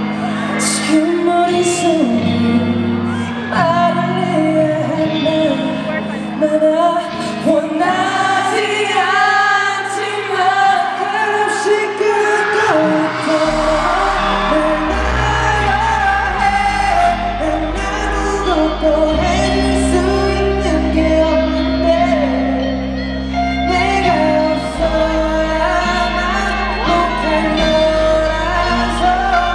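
Pop song with singing, heard in a large hall, with a deep bass line coming in about halfway through and fans shouting.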